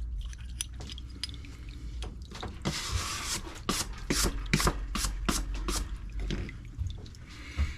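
Wet carburetor parts fresh out of an ultrasonic cleaner's solution being handled: a run of short knocks, scrapes and rubs with some liquid dripping, busiest in the middle.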